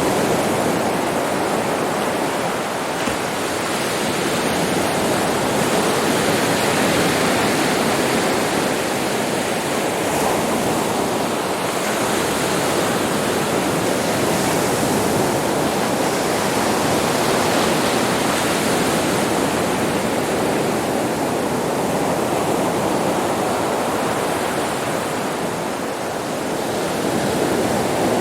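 Sea surf breaking on a beach: a steady wash of crashing and foaming water that swells and eases gently every few seconds.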